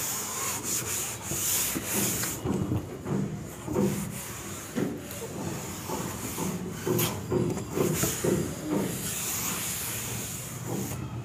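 Cloth wiping across a chalkboard, erasing chalk writing in a series of uneven rubbing strokes.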